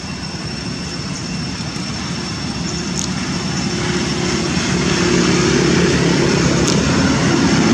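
A steady engine drone growing gradually louder, as if approaching.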